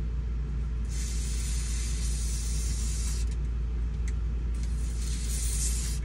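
Aerosol can of silicone spray hissing through its straw nozzle in two sprays: a long one of about two seconds starting about a second in, and a shorter one near the end.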